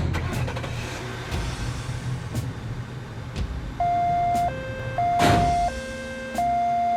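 Emergency-vehicle sound effect: an engine rumble, then about four seconds in a two-tone siren starts, switching between a high and a low note about every two-thirds of a second. A brief loud rushing sound passes about five seconds in.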